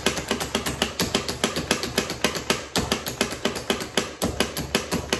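Pampered Chef Classic plunger food chopper being pumped quickly, its blade striking down through unsalted peanuts in the base. The result is a steady run of sharp clacking strokes, about five or six a second.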